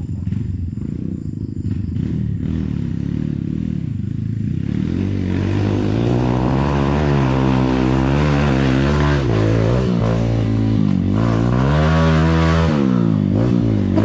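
Off-road trail motorcycle engine running low for a few seconds, then revved harder, its pitch rising and falling several times with short drops off the throttle.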